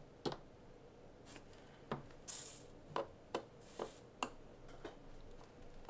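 Small RC drift car parts being handled and fitted by hand: a scatter of light clicks and taps, about six, with two brief rustles in between.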